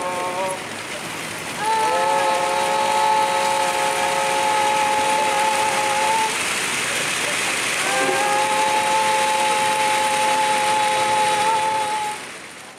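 Two long held humming tones, one at about 1.7 s and one at about 8 s. Each slides up into pitch and is held for about four seconds, over a steady rushing hiss. The sound fades out near the end.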